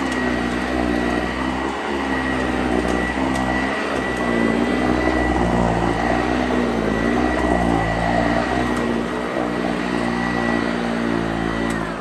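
Sanitaire commercial upright vacuum cleaner running, a steady high motor whine over a lower hum whose pitch wavers up and down every second or two. Near the end it is switched off and the whine begins to fall.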